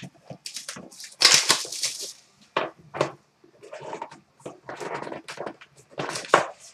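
Cardboard trading-card boxes and plastic wrappers being handled, giving irregular bursts of crinkling and rustling, loudest about a second in and again near the end.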